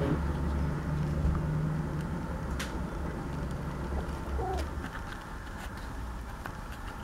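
A mourning dove's short, faint coo about four and a half seconds in, over a steady low rumble.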